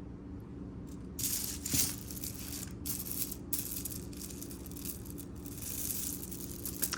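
Costume jewelry being handled and rummaged through: a run of rattling and rustling that starts about a second in, with a sharp click near two seconds.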